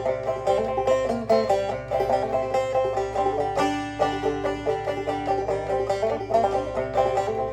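Banjo played clawhammer style, an instrumental blues break in the key of C: a steady run of plucked notes struck down on the strings, with no singing.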